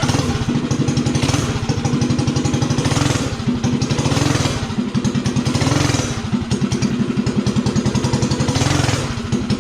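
Stage 3 single-cylinder clone minibike engine running at a fast idle and blipped up in revs about three times, testing the tip-in throttle response after the carburettor needle was dropped one slot to richen it. The owner finds the response a lot crisper.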